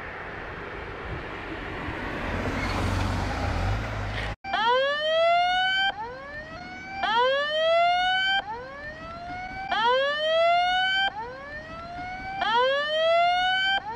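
A siren sounding in repeated rising whoops, about one every second and a half, starting abruptly about four seconds in. Before it, a broad rumbling noise swells, like a vehicle passing close by.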